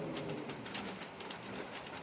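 Steady rain with many distinct drops striking, and a low wavering wind moan that fades out in the first second.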